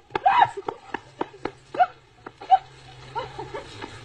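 A dog barking in short, sharp barks at irregular intervals while snapping at a jet of water from a hose, with a low steady hum underneath from about a second in.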